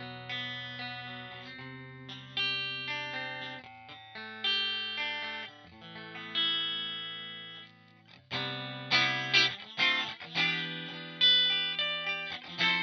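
Squier Affinity Stratocaster electric guitar played through a Line 6 POD HD500 effects unit: chords struck about every two seconds and left to ring out. About eight seconds in the playing turns quicker, brighter and louder, with short picked chords.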